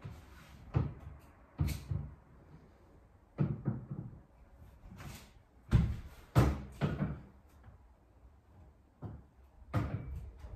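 Drinking glasses being set down one by one on a table: a string of irregular knocks and light clinks, the loudest around the middle.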